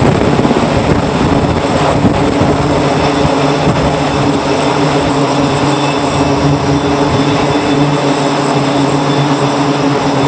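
MH-60R Seahawk helicopter's rotor beating loudly as it lifts away, the beat fading after four or five seconds and leaving a steady engine drone.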